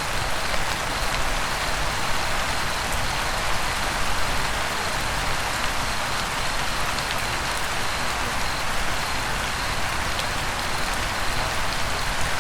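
Steady rain-like hiss that does not change in level or break.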